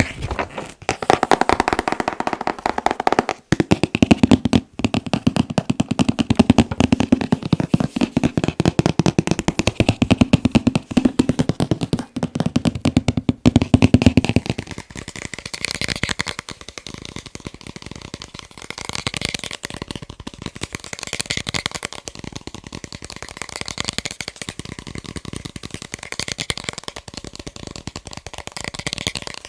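Fast ASMR tapping on objects, a dense run of rapid taps. Through the first half the taps have a fuller, hollow-sounding body; about halfway through they change to a lighter, higher-pitched tapping.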